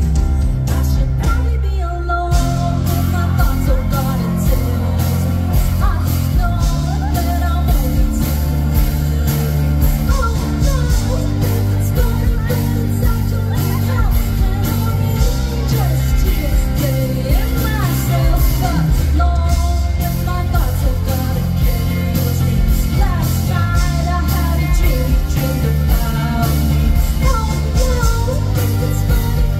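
Live band music: a woman singing into a microphone over amplified electric guitar and a steady beat.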